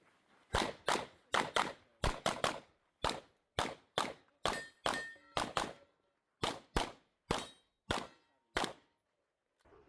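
Rapid pistol fire from a 9mm Glock 17 Gen 5 during a practical-shooting stage run: about two dozen shots, many in quick pairs, with a pause of nearly a second partway through. A few shots are followed by a short ringing tone.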